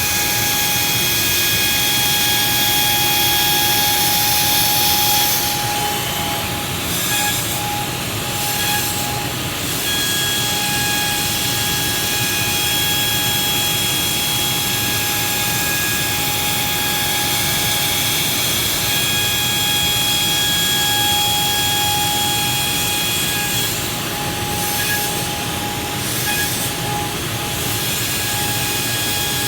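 A motor-driven machine running steadily: a constant whine with overtones over a loud hiss, the high hiss thinning out twice for a few seconds.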